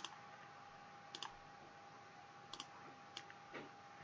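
Faint computer mouse clicks, about five of them, some in quick press-and-release pairs, over a faint steady whine.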